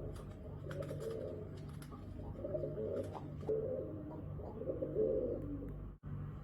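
Pigeons cooing in low, overlapping, repeated phrases, with scattered sharp clicks, cutting out for an instant near the end.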